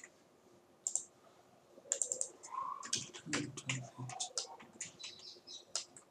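Computer keyboard keys and mouse buttons clicking: a couple of single clicks at first, then a quick irregular run of clicks from about two seconds in.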